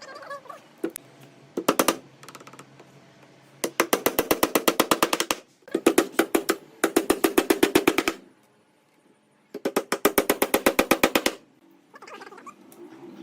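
Impact driver hammering in four short bursts of rapid clicks, the bursts coming a second or two apart, as in driving screws into pallet wood.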